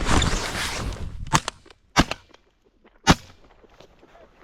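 Shotgun fire at waterfowl: a loud blast at the start that fades over about a second, then sharp shots about 1.4, 2 and 3 seconds in, the last one the loudest.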